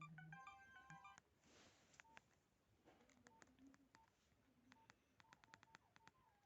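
Nokia 1616 phone sounding faint short electronic beeps through its small speaker: a quick run of tones at several pitches in the first second, then sparse single beeps and clicks. A brief hiss comes about a second and a half in.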